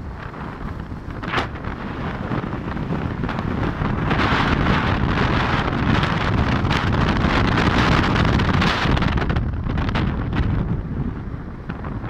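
Wind buffeting the microphone of a moving vehicle: a steady rushing noise that grows louder about four seconds in and eases back off after about nine seconds.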